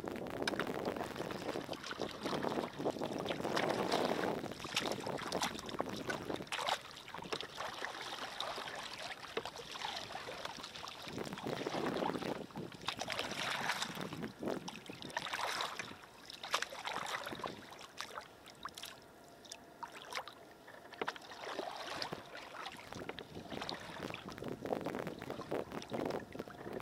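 Water splashing and sloshing around a kayak as it is paddled, swelling and fading in uneven surges every second or two.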